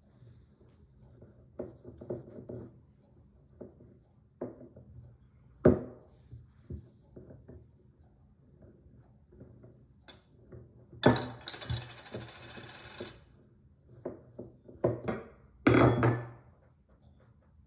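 Clay-crafting tools, a roller and plastic shape cutters, knocking and tapping on a wooden tabletop in scattered bursts, with a sharp knock about six seconds in. Near the middle comes a scraping rush of about two seconds, and a louder cluster of knocks near the end as the roller is set down.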